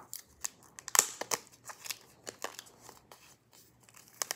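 Thin plastic wrapping crinkling and crackling in irregular clicks as it is peeled off by hand, the sharpest crackle about a second in.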